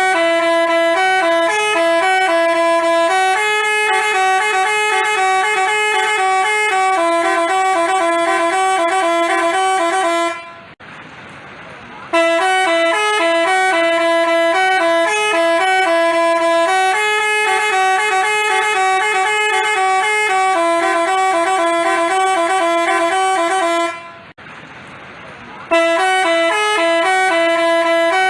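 Basuri 'telolet' multi-tone bus horn playing a loud stepping melody. The same phrase is repeated, with two short breaks, about a third and about five sixths of the way through.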